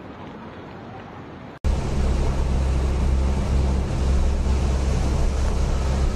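Quiet steady noise, then an abrupt jump about a second and a half in to the loud rushing of heavy rain and floodwater running over a road, with wind buffeting the microphone. A steady low hum runs underneath.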